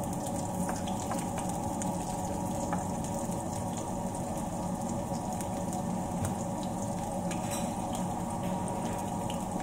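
Chopped onion frying in hot oil in a nonstick pan, a steady sizzle with scattered small crackles.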